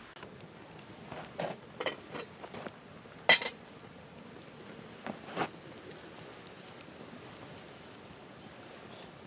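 Metal cooking pot and lid clinking and knocking against a steel grill grate over a campfire as a gloved hand handles them: a string of sharp clinks in the first half, the loudest about three seconds in, and two more near the middle. The wood fire crackles faintly underneath.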